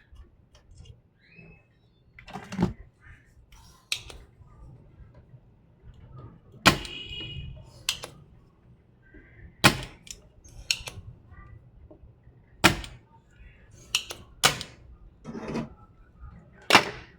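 Scattered sharp clicks and knocks, about ten of them at uneven intervals, of hard parts and tools being handled while a TV is taken apart; one knock about seven seconds in rings briefly.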